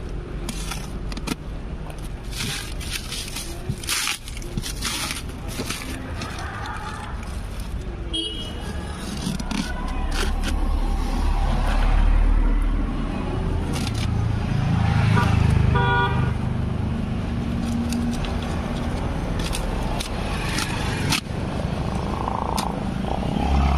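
Plastic stretch wrap crackling and packing tape scraping and tearing as a box cutter and hands open a taped parcel, in a run of sharp crackles that thins out in the second half. Underneath runs a low rumble that swells about halfway through.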